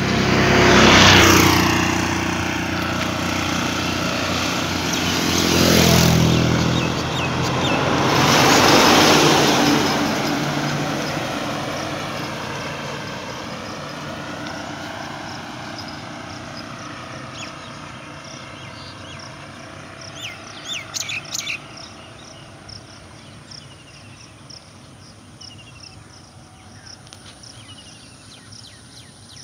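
Road vehicles passing close by, three in the first ten seconds, each engine's pitch dropping as it goes past. Afterwards a quieter outdoor background with birds chirping in short, regularly repeated calls.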